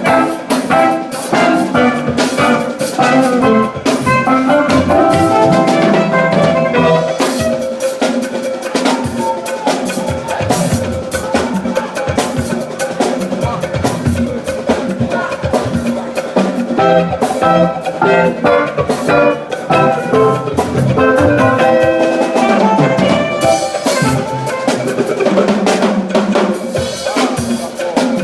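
Church choir anthem with a live band, a drum kit striking throughout under dense pitched music.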